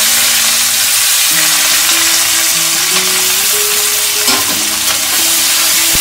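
Sliced onions sizzling as they fry in hot mustard oil in a metal kadai, a steady crackling hiss. A quiet background melody plays underneath.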